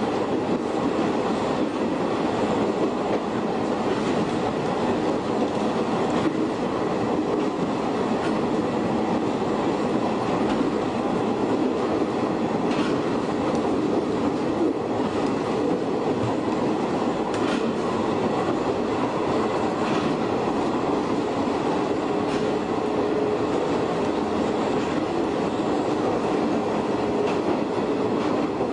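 Shin-Keisei 100-series electric train with nose-suspended traction motors running at speed, a steady motor-and-wheel drone with occasional clicks from rail joints.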